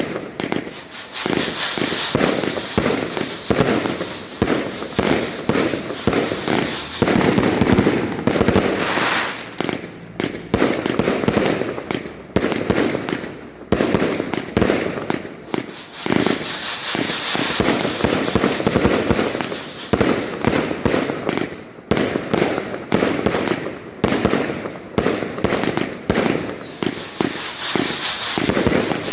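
A 100-shot firework cake firing, its shots coming one after another in a dense, unbroken run of sharp reports.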